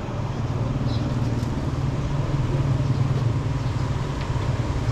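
A car engine running steadily, a low hum with road or street noise around it.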